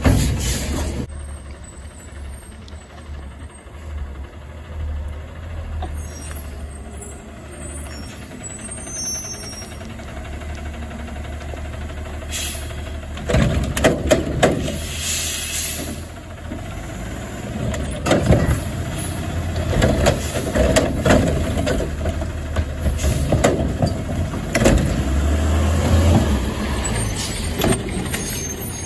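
Front-loading garbage truck with a carry-can cart arm working at the curb: the diesel engine runs steadily, the air brakes hiss, and from about halfway in a series of loud clanks and bangs as the arm handles a recycling cart.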